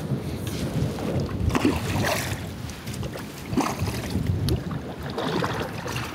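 Double-bladed kayak paddle stroking through calm water on alternate sides, with a short splash of the blade about every second. Wind rumbles on the microphone underneath.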